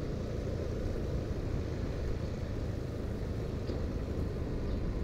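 Steady engine and road noise from a vehicle moving along a lane.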